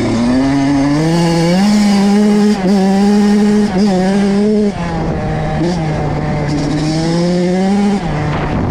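Kawasaki KX85 two-stroke dirt bike engine under hard throttle. It climbs in pitch over the first two seconds and is held at high revs with two brief breaks, drops about five seconds in, holds again, and falls off near the end.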